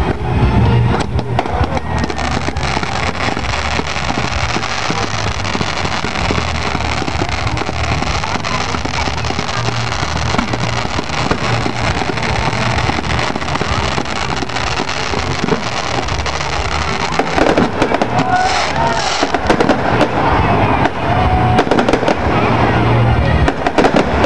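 Fireworks display: aerial shells bursting one after another with bangs and crackle, the bangs coming thicker and louder in the last several seconds.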